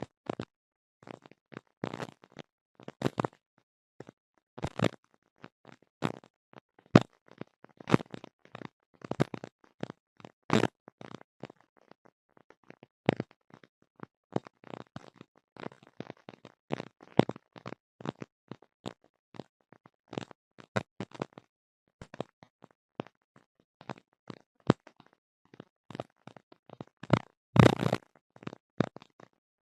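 Irregular crackling clicks and pops, several a second, with near-silent gaps between them and a louder cluster of crackles near the end.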